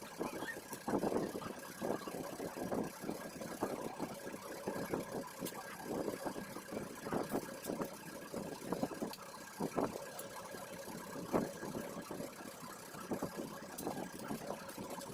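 Irregular clinks and knocks of hand tools working on a motorcycle's rear sprocket and chain, with a steady engine hum in the background.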